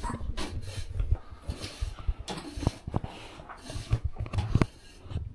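A child's small rake scraping and rustling through wood shavings on a rubber stable mat, with irregular knocks and low bumps.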